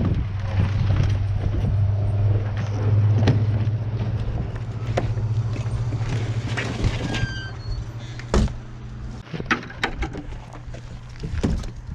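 An engine running with a steady low hum that fades about eight seconds in, with scattered knocks and clicks over it.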